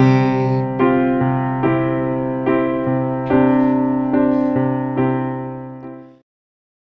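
The closing bars of a background song: keyboard chords, piano-like, struck about every 0.8 seconds with no singing. The last chord fades and the music cuts off to silence about six seconds in.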